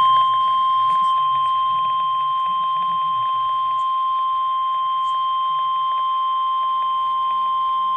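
NOAA Weather Radio's 1050 Hz warning alarm tone: one loud, steady, unbroken tone announcing a severe thunderstorm warning.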